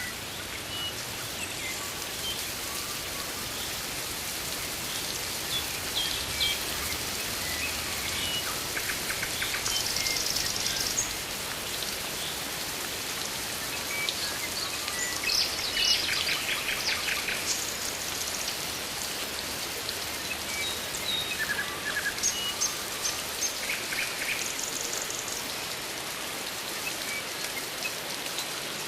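Rainforest ambience: a steady hiss of rain with scattered bird chirps and short trills over it, busiest about a third of the way in, around the middle and again later on.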